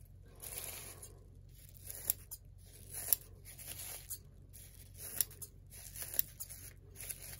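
Metal scissors snipping through a folded plastic bag, cutting it into strips: a sharp snip about once a second, with the plastic crinkling between cuts.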